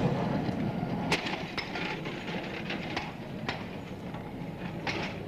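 Electric street tram running along its rails, a steady rumble broken by sharp, irregular clicks of the wheels over the track.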